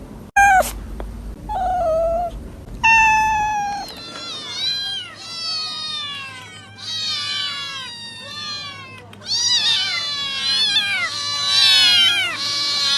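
Cats meowing: a few separate meows in the first few seconds, then from about four seconds in several high-pitched meows overlapping almost without a break, most of them falling in pitch.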